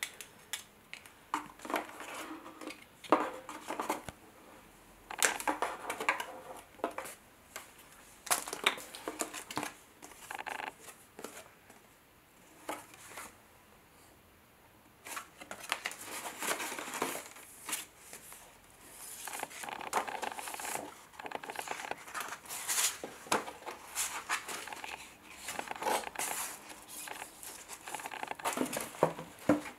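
Paper, cardstock and plastic kit pieces rustling, crinkling and tapping as they are handled and lifted out of a cardboard box, in irregular bursts with a quieter lull about halfway through.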